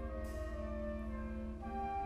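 Middle school concert band playing held chords of woodwinds and brass, the chord changing twice.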